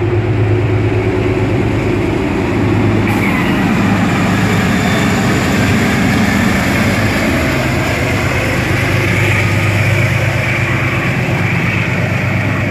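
Metro-North commuter train cars rolling across a steel railroad bridge: a loud, steady low rumble and hum, with a high thin whine starting about three seconds in.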